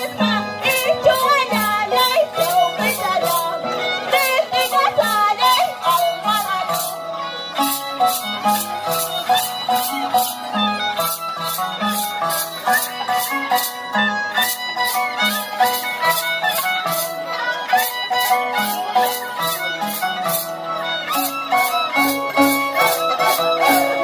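Live Andean huaylía folk music: violins play a melody over a steady shaken-rattle beat of about three strokes a second, with rhythmic low notes underneath.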